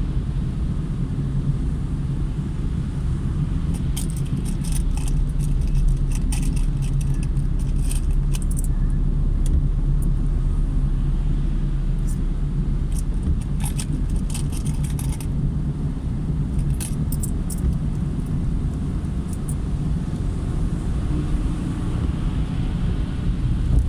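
A car driving on a rain-wet road: a steady low rumble of engine and tyres, with clusters of light high clicking or jingling from about 4 to 15 seconds in and again briefly around 17 seconds.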